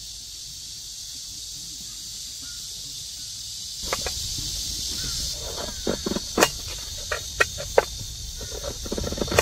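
Steady high chirring of insects, with the faint scrape of a knife peeling a raw potato. From about four seconds in, a series of sharp clicks as a knife cuts through potato and strikes a metal plate.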